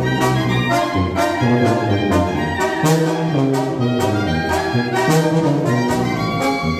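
Brass band music, with trumpets and trombones playing over a steady percussion beat.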